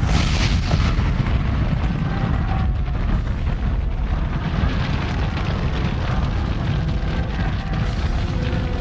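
Continuous deep rumbling roar of a huge explosion and fuel fire, with a sharper hissing burst at the very start.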